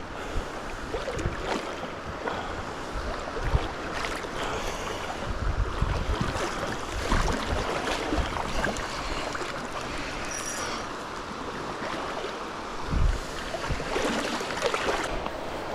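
Steady rush of flowing stream water, with scattered low thumps of wind buffeting the microphone.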